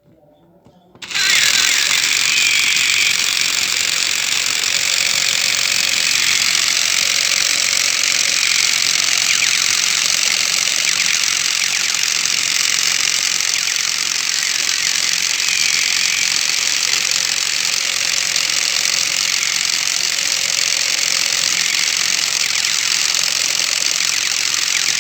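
Toy pistol making a loud, continuous, rapid rattle like machine-gun fire, starting about a second in and holding steady without a break.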